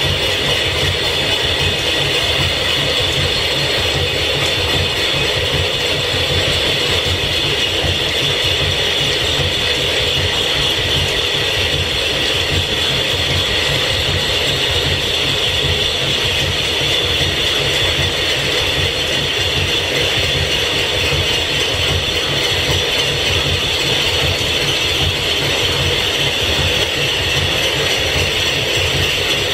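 Belt-driven line-shaft machinery running under steam power: a steady mechanical clatter of gears and belts with a constant high whine, changing just at the end.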